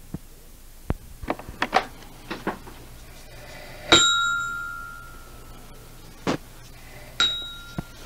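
A few light clicks and taps, then a small bell-like object struck twice: once about four seconds in and again near the end. Each strike rings with the same clear, high tone, which dies away over a second or two.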